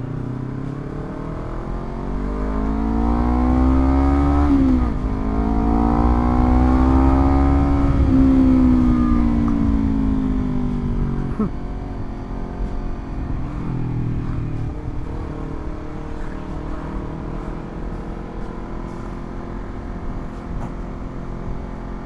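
Honda CBR250RR parallel-twin engine through a Villan MV2 aftermarket exhaust, pulling away from a stop. The revs rise, drop sharply at an upshift about five seconds in, and climb again. They then ease off and settle into a steady low-rev cruise.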